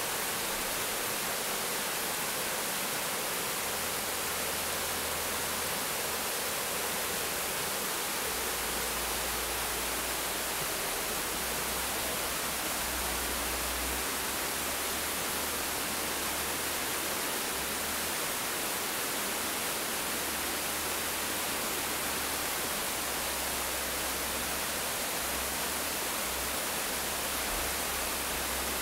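Steady rush of white water pouring down a stepped stone weir, a constant hiss with a low rumble coming and going underneath.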